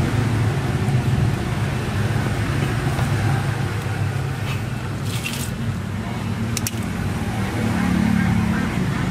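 A steady low hum under brief clicks and rustles of electrical wires and a plastic connector being handled, with a short rattle about five seconds in and a couple of sharp clicks near seven seconds.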